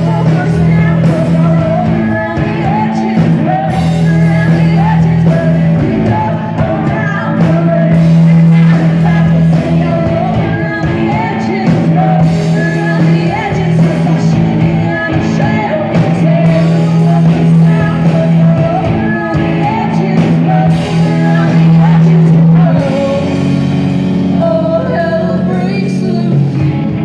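Live indie rock band playing: drums, bass guitar and electric guitars, with a woman singing lead vocals into the microphone. A sustained bass note underpins most of it, and the bass line drops lower near the end.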